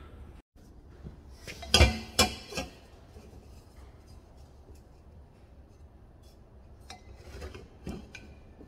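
Steel pipe bends clinking and knocking against each other as they are handled and lined up. There are three sharp clinks about two seconds in and a few softer ones near the end.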